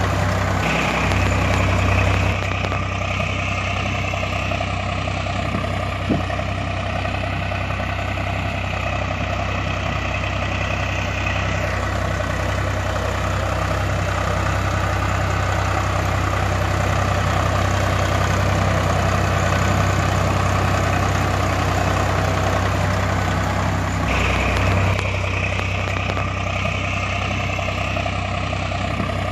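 A tractor engine sound idling steadily with a low, regular throb, most likely an added sound effect since the toy tractor has no engine.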